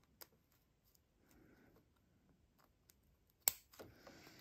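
Small scissors snipping through the excess clear PVC sheeting around a sewn star shape: a few faint cuts and one sharp snip about three and a half seconds in.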